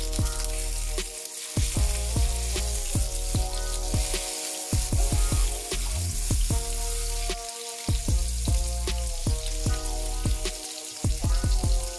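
Salmon fillets sizzling as they fry in hot oil in a frying pan, a steady hiss. Background music plays over it.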